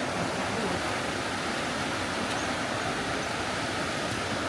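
Steady rushing of flowing creek water, an even wash of noise with no breaks.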